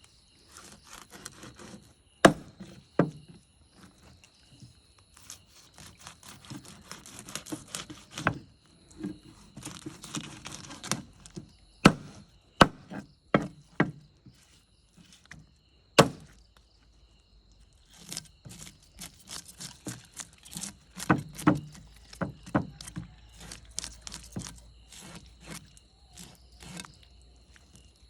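A knife chopping a fish on a wooden block: irregular sharp knocks, a few much louder strikes, with scraping and handling noise between them.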